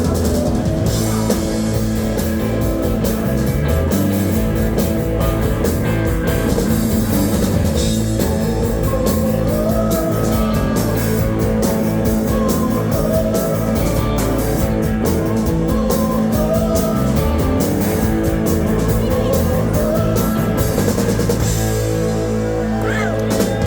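A rock band playing live, with a full drum kit and guitars. The drumming thins out near the end, leaving held chords ringing.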